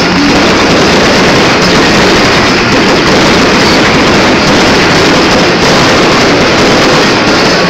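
Fireworks going off at close range: shells bursting overhead together with a ground fountain, merging into one very loud, continuous wash of crackle and rumble with no separate bangs standing out.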